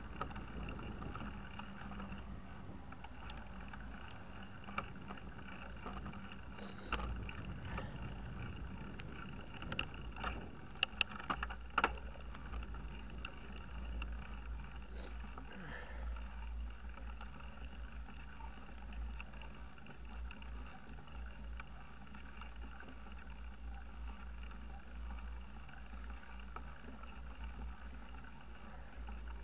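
Wind buffeting the camera microphone over a steady rumble of tyres on tarmac as a mountain bike rolls along, with a few sharp clicks and rattles from the bike around seven seconds in and again about ten to twelve seconds in.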